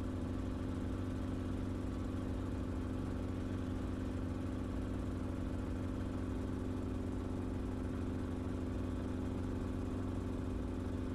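Enstrom helicopter in flight, its engine and rotor making a steady, even drone with a low hum.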